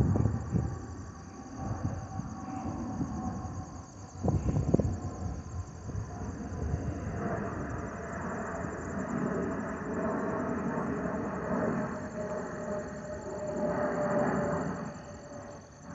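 Jet noise from an Airbus A321neo's Pratt & Whitney PW1100G geared turbofans climbing overhead: a broad rumble that builds from about seven seconds in, with a faint whine slowly dropping in pitch. Insects chirr steadily throughout, and wind buffets the microphone near the start and about four seconds in.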